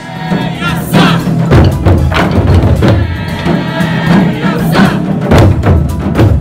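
Taiko drum ensemble playing: loud, rapid strikes on large barrel-shaped drums with sticks in a driving rhythm.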